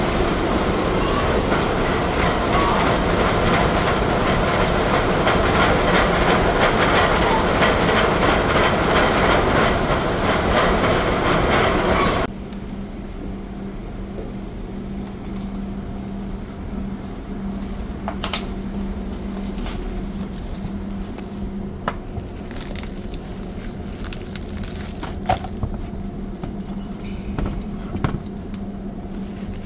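Loud machinery running with a dense, rapid clatter that cuts off suddenly about twelve seconds in. A quieter steady hum follows, with a few sharp clicks.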